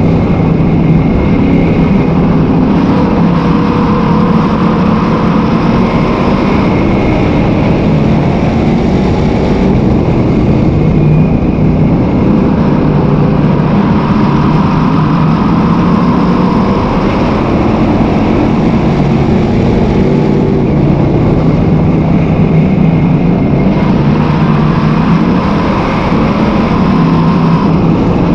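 Dirt-track sportsman modified's V8 engine running hard at racing speed, heard from inside the car, its note repeatedly dropping and climbing again every several seconds.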